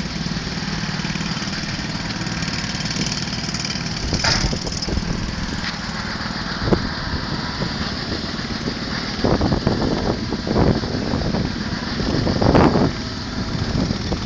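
A small engine running steadily as it moves along, with several knocks and clatters, mostly in the second half.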